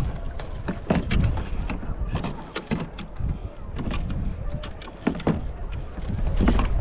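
Wind buffeting the microphone, with irregular knocks and clicks of gear against a fishing kayak.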